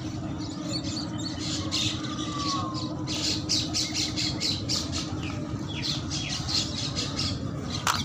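Crayon or pastel rubbed quickly back and forth on sketchbook paper while colouring a drawing: a rapid run of scratchy strokes, about five a second, over a steady low background rumble. A single sharp click comes near the end.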